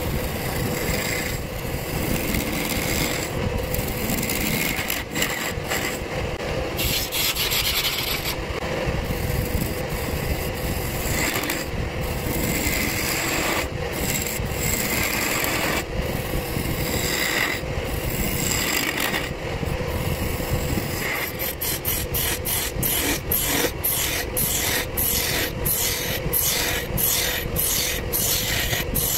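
Wood lathe spinning a wooden blank while a turning chisel cuts it, a steady scraping hiss of steel on wood that stops and starts as the tool is lifted. In the last several seconds it turns into quick, short cuts about three a second.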